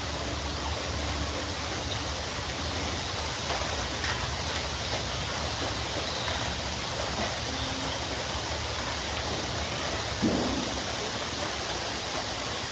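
Bamboo grove rustling in the wind: a steady, dense rustle of leaves and stems. A brief louder sound stands out about ten seconds in.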